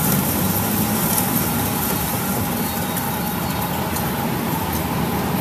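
Metal lathe running, its tool cutting a spinning compressor crankshaft piece and peeling off long stringy steel chips: a steady machine rumble with a thin steady whine over it.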